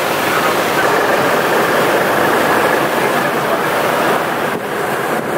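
A sportfishing boat under way: a steady rush of water from its wake, with its engines running underneath.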